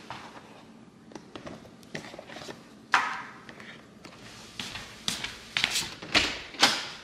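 Close kitchen handling sounds: rustles of a bag and soft knocks as bundles of chives and a carrot are set down on a silicone mat, with one louder rustle about three seconds in. Near the end come a run of sharp clicks and knocks as a door is worked by its knob.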